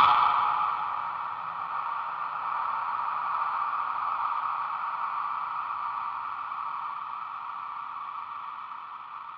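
Ending of an instrumental rock track: the full band drops away at the start and a held chord rings on, slowly fading out.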